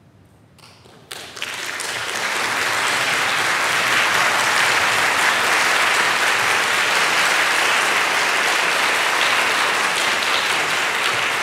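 Audience applause breaking out about a second in, building quickly and then holding steady.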